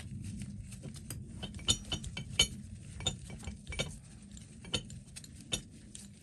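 Small steel screws from a vintage vise clinking and clicking as they are handled and set down: an irregular run of light metallic clicks over a low steady hum.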